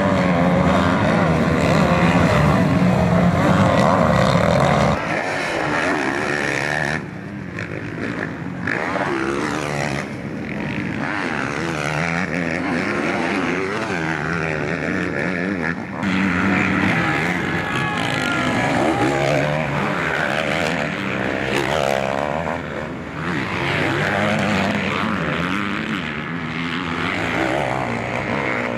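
Motocross dirt bike engines revving hard and rising and falling in pitch as several bikes race past, one bike very close at first. The sound jumps abruptly about five and sixteen seconds in.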